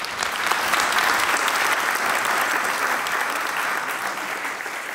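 Audience applauding: many hands clapping, swelling in the first second and then slowly tapering off.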